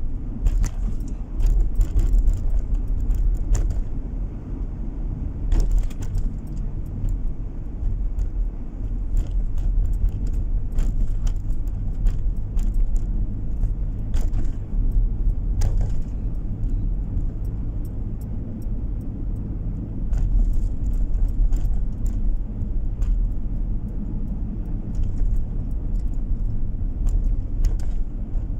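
A car driving along a road, heard from inside the cabin: a steady low rumble of road and engine noise, with frequent small rattles and clicks, busiest in the first few seconds and again about halfway through.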